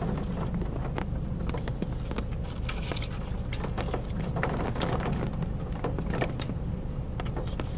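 Close-up chewing of a bite of chicken wrap, with irregular clicks and the crinkle of its paper wrapper being handled, over a steady low rumble inside a car cabin.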